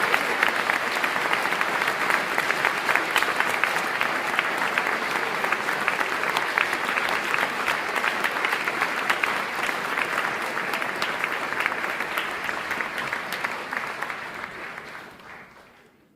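Stock applause sound effect: a crowd clapping steadily, fading out over the last couple of seconds.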